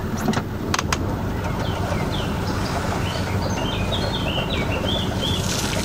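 Sailboat's inboard engine running steadily, its propeller fouled with canal weed. Small birds chirp over it from about two seconds in. A couple of sharp clicks come near the start.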